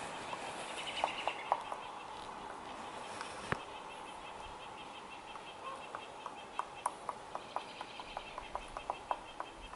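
Woodpecker pecking at wood: short, irregular single taps, sparse at first and then coming about two to three a second in the second half, with one louder knock about three and a half seconds in.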